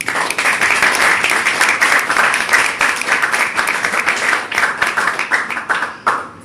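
Applause from a small audience: many hands clapping, starting all at once and dying away after about six seconds.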